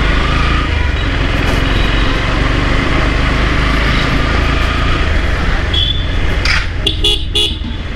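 Vehicle engine running steadily under road and wind rumble while riding, with a few short high-pitched beeps near the end.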